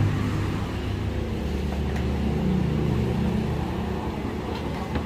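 Steady low machine hum with no change in pitch.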